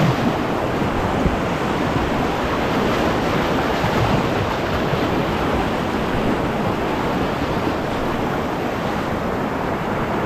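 Whitewater river rapids rushing and churning close around a kayak, a steady dense wash of moving water.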